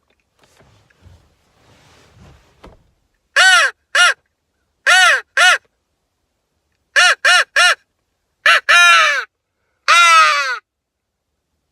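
Hammerin mouth crow call blown in loud, close caws, each arching up and down in pitch: a pair, another pair, a run of three, then longer, drawn-out caws near the end.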